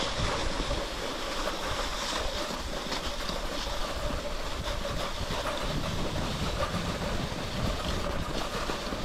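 Cross-country skis sliding along a groomed snow track, a steady hiss with faint irregular ticks.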